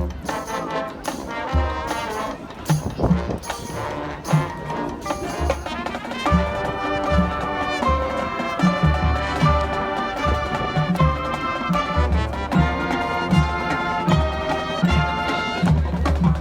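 High school marching band playing: brass holding and moving through chords over steady bass drum beats.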